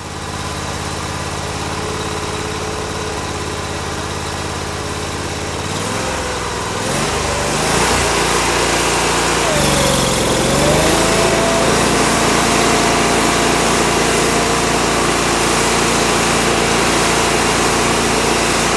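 Toro STX-38 stump grinder's engine running with the cutter wheel spinning. Its pitch wavers twice, around six and ten seconds in, then it settles into a louder, steady run.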